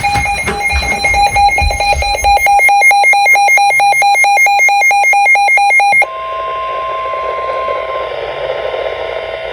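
Weather radio alert: an electronic alarm beeps rapidly, many beeps a second, for about six seconds and then stops abruptly. A steady NOAA Weather Radio warning alarm tone follows, signalling that a warning broadcast is about to begin.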